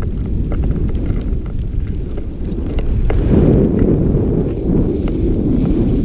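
Wind rushing over a GoPro's microphone as a snowboarder rides downhill, with the snowboard sliding on the snow. The rumble gets louder about three seconds in.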